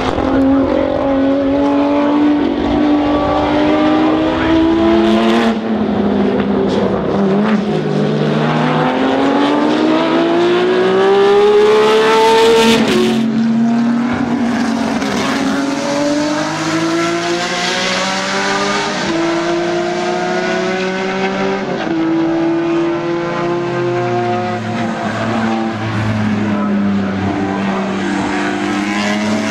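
Several historic racing car engines running hard on a circuit, their notes rising through the gears and dropping at each upshift or lift. About halfway through, one long rising pull ends in a sudden drop in pitch.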